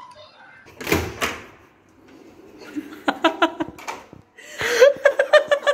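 Women laughing in quick, repeated bursts, after a short noisy burst about a second in.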